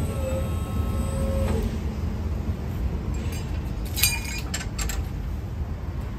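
Maxilift ML230 knuckle boom crane's hydraulic pump motor whining steadily as the crane is worked, cutting off about one and a half seconds in, over a low steady rumble. A sharp metallic clank about four seconds in.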